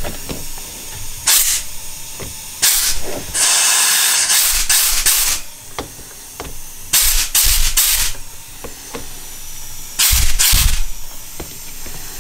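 Compressed air from an air blow gun fired in several short hissing blasts into the jets and float-valve passages of a Honda CB750 SOHC four-carburettor bank, checking that the passages are clear. The longest blast lasts about a second.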